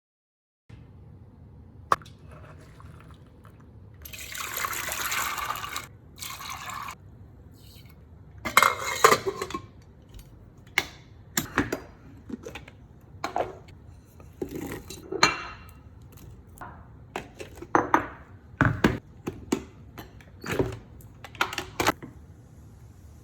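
Water pouring for about two seconds, then a run of short clinks and splashes of kitchen pots and utensils with water.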